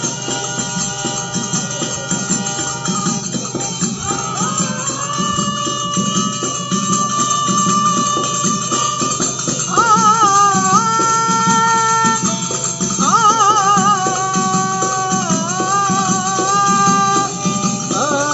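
Kannada devotional bhajan: men singing long, wavering held notes over a steady percussion rhythm, with fresh phrases entering about 4, 10 and 13 seconds in.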